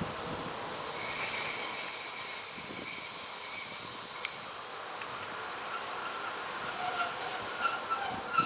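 Wheels of an approaching ALn 668 diesel railcar squealing on the rails: one steady high-pitched squeal rises about a second in, holds for several seconds and fades, with a few lower squeals near the end.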